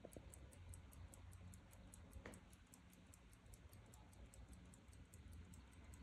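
Mechanical alarm pocket watch movement ticking faintly and steadily, about five ticks a second, with one soft click about two seconds in.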